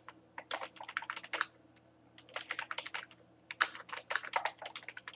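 Typing on a computer keyboard, in three quick runs of keystrokes separated by short pauses.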